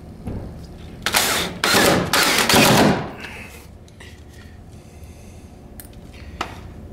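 Ryobi cordless drill driving a screw through a metal sliding-door guide into a pre-drilled hole. It runs in three short bursts, about one to three seconds in, followed by a few light clicks and a brief blip of the motor near the end.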